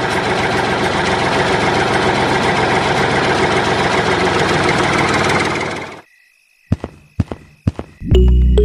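Steady engine running sound for the miniature tractor as it drives, cutting off suddenly about six seconds in. A few sharp clicks follow, then music starts near the end.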